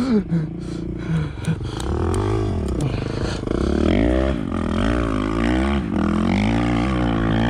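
Off-road vehicle engine revving up and down over and over in sand, the pitch rising and falling several times from about two seconds in.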